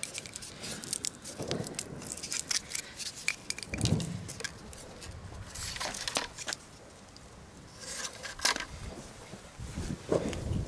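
Handling noises while a firework rocket is taken from its plastic packaging and set in a launch stand: crinkling plastic wrapper with scattered sharp clicks and scrapes, and a couple of dull knocks.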